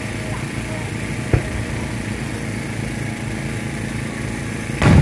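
Fireworks going off: a short thump about a second in and a loud boom near the end, over a steady low background rumble.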